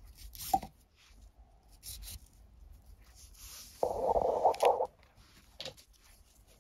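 Nylon paracord rubbing and rustling as hands handle and straighten the strands: a few short rustles, then a louder, longer rub about four seconds in, and a small click near the end.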